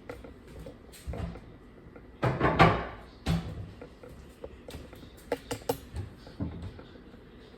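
A dishwasher and dishes being handled: scattered knocks and clicks, with a louder rattling clatter about two and a half seconds in.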